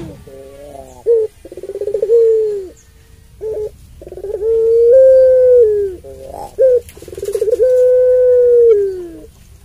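Puter pelung, a long-voiced caged ringneck dove, cooing: three long drawn-out coos, each held steady for one to two seconds and dropping at the end, each one led by a short rising coo.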